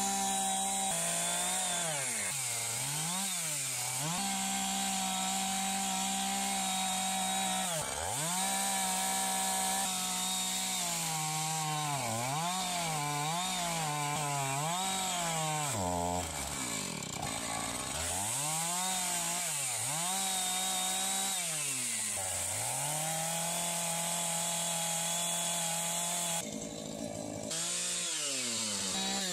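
Two-stroke chainsaw running at high revs and cutting into a squared log, its engine pitch dropping and recovering again and again as the bar bites into the wood and comes free.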